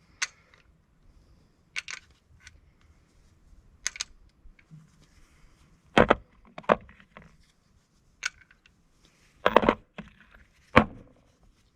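Scattered clinks and knocks of scrap metal parts being handled and set down, about eight in all, loudest about six seconds in and again near ten seconds.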